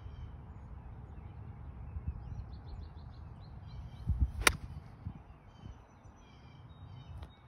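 A 58-degree wedge strikes a golf ball from the fairway: a low thud of turf about four seconds in, then one sharp click of clubface on ball. The shot is hit a little heavy (chunked), taking turf with it. Birds chirp faintly in the background.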